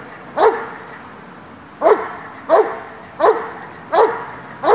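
Large dog barking repeatedly at a crouching stranger: six sharp barks, a pause after the first, then about one every 0.7 s.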